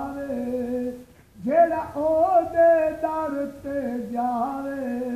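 A man singing a Punjabi naat unaccompanied, holding long drawn-out notes, with a short break for breath about a second in.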